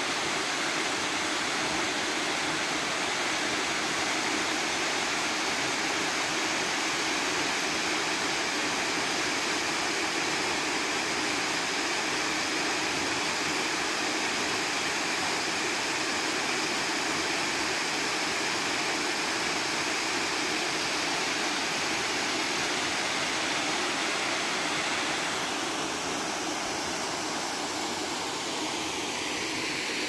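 Dam overflow water falling down a rock face into a ravine, a steady rushing noise that gets a little quieter and duller about 25 seconds in.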